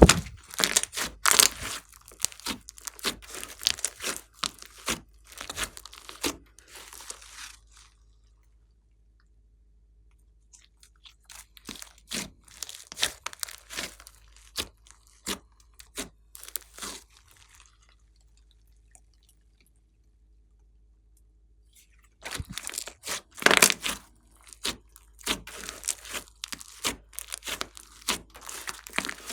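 Glossy slime being squeezed and worked by hand, giving dense crackling clicks and pops. It comes in three bouts separated by pauses of a few seconds.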